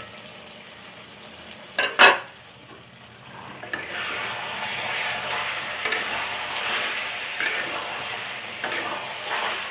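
A metal pot lid clanks once, sharply, about two seconds in as it comes off the pan. From about three and a half seconds a spatula stirs and scrapes through thick chicken and potato curry sizzling in a metal kadai, with small clicks against the pan.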